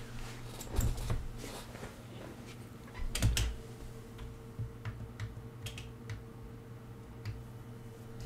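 A few scattered clicks and taps from a computer keyboard, the loudest about three seconds in, over a faint steady hum.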